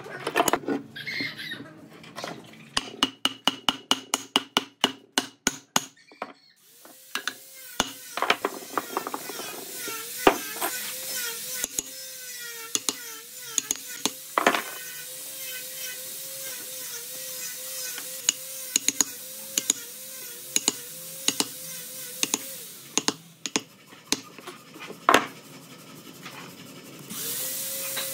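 Hand chisel cutting a round recess into a weathered wooden slab: a quick, even run of sharp taps for the first six seconds, then scraping with scattered knocks as the wood is pared out.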